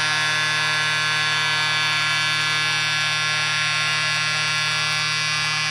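Ice hockey arena goal horn sounding one long, steady blast, signalling a home-team goal.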